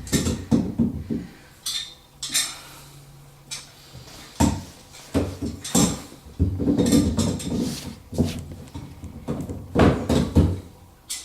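Channel-lock pliers clinking, knocking and scraping against the plastic slip nuts of a PVC P-trap and drain fittings as they are gripped and snugged. The clicks and clatters come irregularly, several loud knocks among lighter scrapes.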